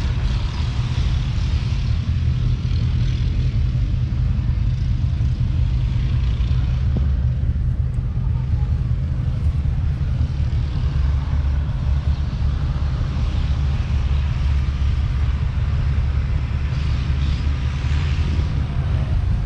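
The 2005 Valtra T150's 6.6-litre six-cylinder diesel engine idling steadily, a deep even drone.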